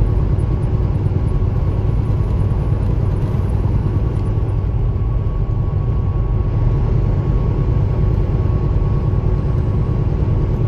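Cab interior of a 2022 Kenworth T680 semi truck cruising at about 64 mph with the engine near 1,100 rpm: a steady deep drone of engine and road noise with a thin steady whine above it.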